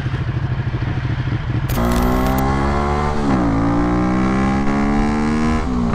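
A motorcycle engine idling with a low pulsing rumble, then, about two seconds in, a sport motorcycle's engine accelerating hard. Its pitch climbs, drops at an upshift a little past three seconds, and climbs again.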